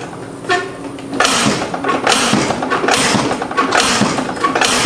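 Lawn mower's operator-presence bail lever and its control cable being worked back and forth, a rhythmic rasping about twice a second as the freshly lubricated cable is freed up.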